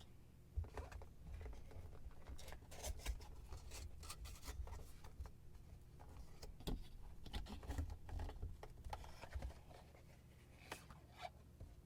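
Handling noise from unpacking a cologne box: cardboard and paper rustling with irregular light clicks and taps and a few soft bumps.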